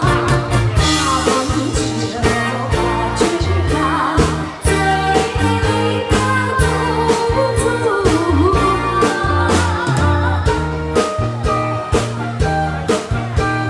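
A singer performing a pop song over an amplified backing track, with a steady drum beat and bass line.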